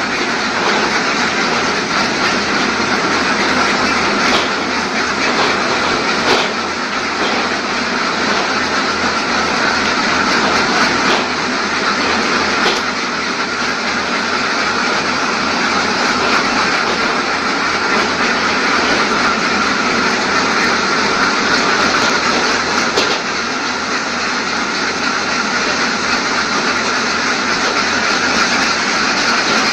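Automatic egg-collection machinery of a duck cage system running: a steady mechanical clatter from the egg elevators and belts, with a few sharp clicks.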